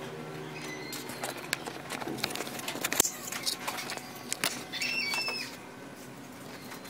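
Light clicks and knocks of handling noise while a handheld camera is moved, with a short high squeak about five seconds in.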